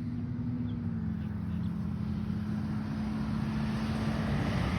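A motor vehicle's engine humming steadily, dipping slightly in pitch about a second in and growing louder toward the end as it approaches.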